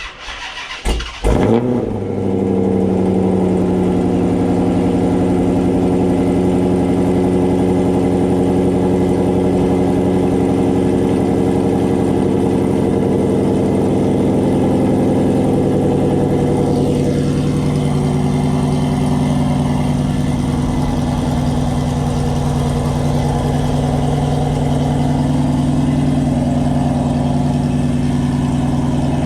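2013 Dodge Challenger R/T's 5.7-litre HEMI V8 cold-started: it cranks unevenly for about a second and a half, struggling on a low battery after sitting unused. It then catches with a rev and runs at a steady fast idle, whose note changes about halfway through.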